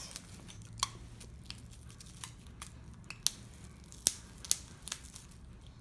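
Faint, scattered small clicks and crinkles of fingers handling a dog's hair wrap and putting a latex band on at its base, with two sharper snaps a little after four seconds in.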